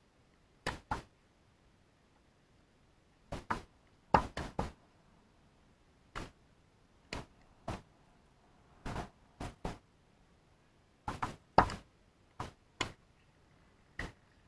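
Tennis ball being struck by rackets and bouncing on a hard court during a rally: a string of sharp pops, often in close pairs, at irregular intervals of roughly half a second to a second and a half, with the loudest strikes about four seconds in and again near eleven and a half seconds.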